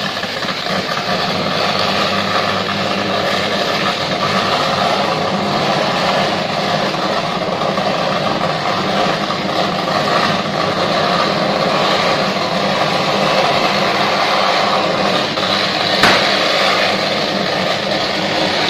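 Steady, loud buzzing hiss of an electrical short circuit arcing on an electric suburban train at the platform, with one sharp crack about three-quarters of the way through.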